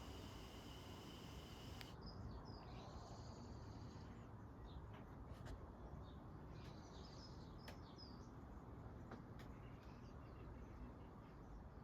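Near silence with faint bird chirps in the background, scattered short calls from about two seconds in.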